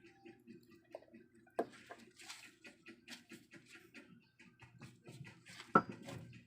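Food cooking in a pan: light, irregular crackling and ticking over a steady low hum, with two sharper knocks, one about one and a half seconds in and a louder one near the end.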